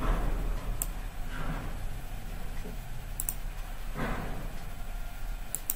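Computer mouse clicking a few times, twice as a quick double click, over a low steady hum.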